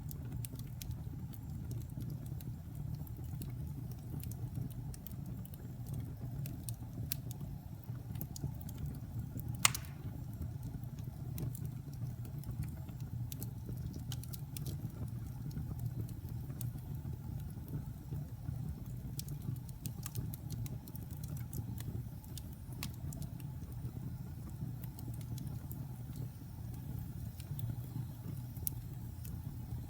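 Logs burning in a fireplace: a steady low rumble of the flames with scattered small crackles, and one loud pop about ten seconds in.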